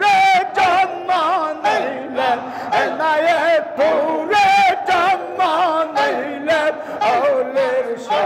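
Men chanting a Sufi zikr together: a lead singer on microphone with the group chanting along, the voices wavering and pulsing about twice a second.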